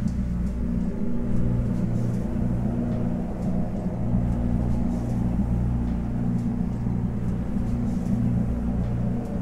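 Low, steady rumbling drone that slowly swells and fades about once a second, a suspense film's sound-design bed with no dialogue.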